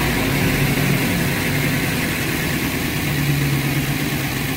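The 5.4-litre V8 of a 2009 Ford E-350 van idling steadily at about 1,100 rpm on a newly fitted electronic throttle body. It runs smoothly with no misfire.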